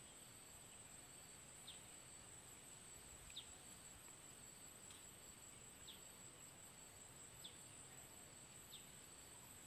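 Faint outdoor ambience, close to silence: a steady high-pitched insect drone, with a short high falling chirp about every second and a half, six in all.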